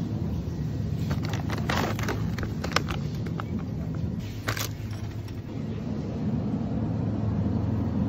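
Steady low hum of supermarket refrigerated dairy shelves, with crinkling and clicks of a plastic-wrapped cheese pack being picked up and handled, loudest about four and a half seconds in.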